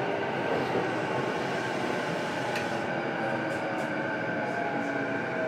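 Onboard running noise of a JR East E233 series electric train, heard inside motor car MoHa E233-7406: a steady rumble of the moving train with faint steady tones over it.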